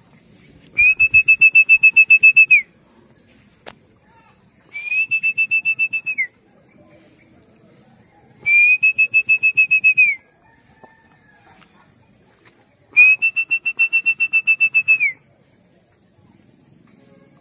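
A pea whistle blown in four long, trilling blasts. Each is a steady shrill tone lasting one and a half to two seconds that drops in pitch as it cuts off, with short pauses between blasts.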